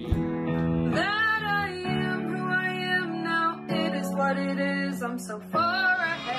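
Music: held chords on a Casio electronic keyboard, with a girl singing two high phrases over them, about a second in and again near the end.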